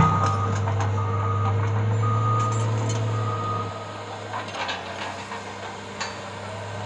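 Reversing alarm on a heavy vehicle beeping four times, about once a second, over a running engine whose drone drops in level about halfway through; a few knocks follow.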